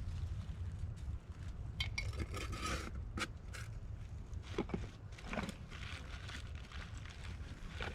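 Scattered clinks, clicks and scrapes of lure bottles and jars being handled at a coyote trap set, with brief rustling bursts, over a steady low rumble.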